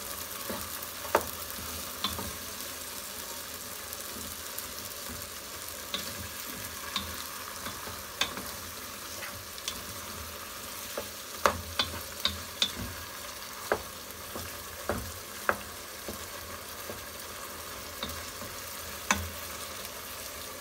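Chicken curry cooking in a pot with a steady sizzling hiss, while a wooden spatula stirs it, knocking sharply against the pot a dozen or so times at irregular moments.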